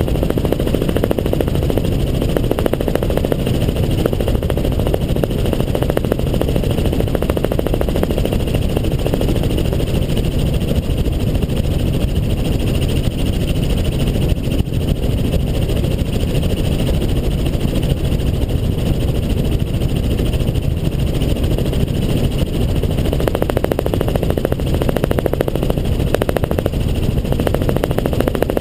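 Helicopter in flight: steady, unbroken engine and rotor noise.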